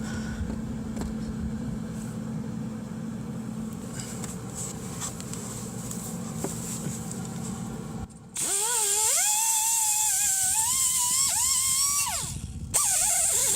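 Low steady hum of the Eastwood MIG 135 welder standing by, then about eight seconds in the MIG arc strikes on the rusty exhaust pipe: a loud crackling hiss with a wavering whine. It stops briefly near the end and starts again.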